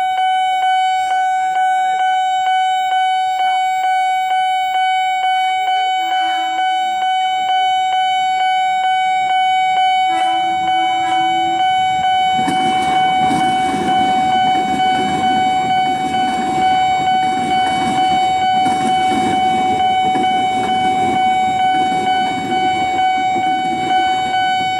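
Railway level-crossing warning alarm sounding loudly, one steady high electronic tone pulsing evenly over and over. From about halfway through, a train rumbles past, its noise rising under the alarm until the end.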